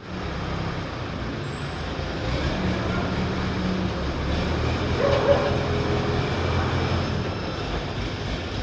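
A heavy engine running steadily with a low hum, with a brief higher tone about five seconds in.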